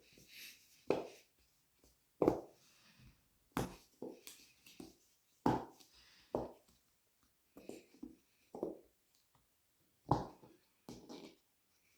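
Dimpl Pops fidget toy: its silicone bubbles pushed through one at a time, each giving a short pop, about a dozen at an irregular pace.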